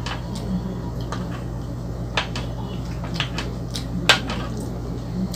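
Eating sounds from a person chewing spaghetti carbonara: a few short, sharp clicks, the loudest about four seconds in, over a steady low hum.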